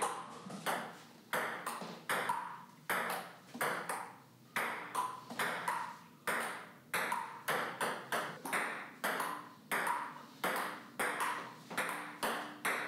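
Table tennis rally: a plastic ball clicking back and forth off paddles and the table top, about two hits a second, each with a brief ring.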